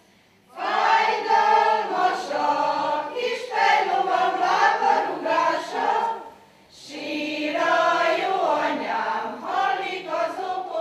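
A women's folk choir singing unaccompanied, in two long phrases with a short pause between them.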